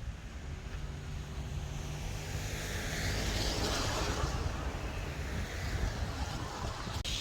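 Car driving on a snowy road: a steady low engine and road hum, with a rush of tyre hiss that swells and fades in the middle. A short click comes near the end.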